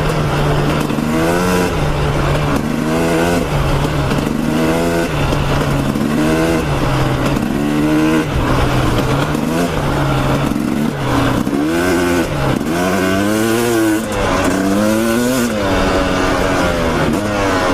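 Dirt bike engine being ridden hard, revving up and dropping back again every second or two as the throttle is opened and closed, with wind rush behind it.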